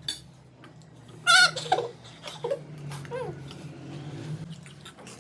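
Dog whining and whimpering: a loud wavering whine about a second in, then several short falling whimpers.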